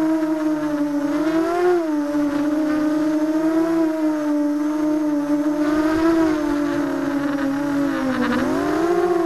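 ZMR250 racing quadcopter's brushless motors and propellers whining, picked up by the camera mounted on its frame. The pitch wavers up and down with the throttle and drops, then climbs back, near the end.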